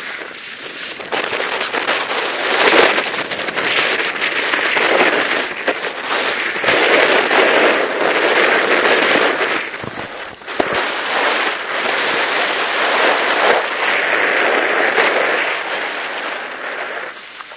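Skis scraping and carving over packed snow during a downhill run: a loud, crackling hiss that swells and eases, with brief lulls about a second in, around ten seconds in and near the end.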